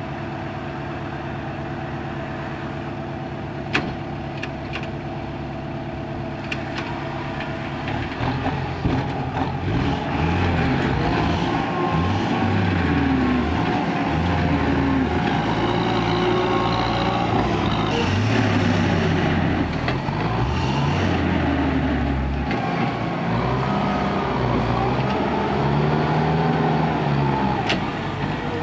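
Ten-wheel dump truck's diesel engine running steadily, then from about eight seconds in its engine speed rising and falling again and again as the truck works its tipper body.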